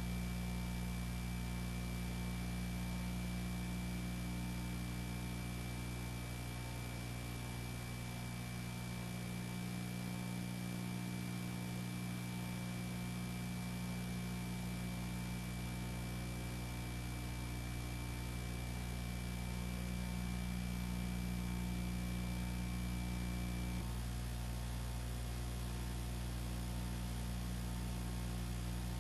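Steady electrical mains hum over hiss, the noise of the film-to-video transfer with no recorded field sound; a faint high steady tone runs alongside and cuts off about 24 seconds in.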